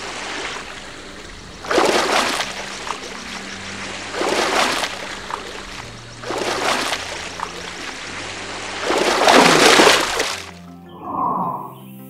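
Water washing in four loud surges, like waves splashing against a hull, over background music with slow held bass notes. A short falling sound follows near the end.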